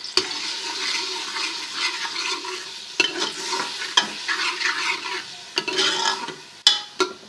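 Ginger-garlic paste sizzling as it fries in hot ghee in a cooking pot while it is stirred, with several sharp knocks of the spoon against the pot, two close together near the end.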